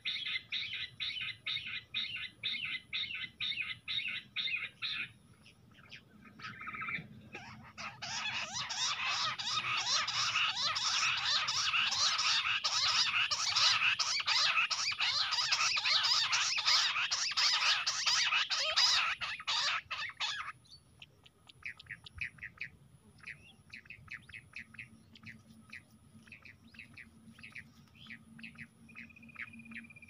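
Jungle bush quails calling. A fast series of repeated notes, about four a second, runs for the first five seconds. From about eight seconds a dense, loud chattering of overlapping calls lasts some twelve seconds and stops abruptly, followed by scattered quieter notes.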